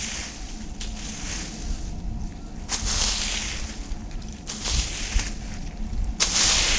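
A rake dragging dry fallen leaves across dry grass in repeated rustling strokes, roughly one every second or so, with a longer, louder stroke near the end.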